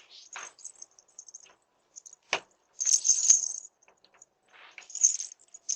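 Door handle and lock rattling and clicking in short bursts as someone tries to open a locked front door that won't give.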